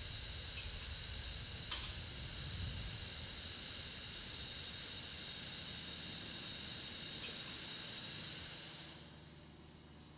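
Argon gas hissing steadily out of a TIG torch run without a gas lens, then tailing off within about half a second near the end as the gas flow stops.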